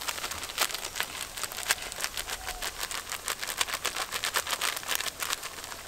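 Red chilli masala frying in hot oil in an earthen clay pot (chatti) over a wood fire, sizzling with dense, irregular crackling pops as spice powder is tipped in.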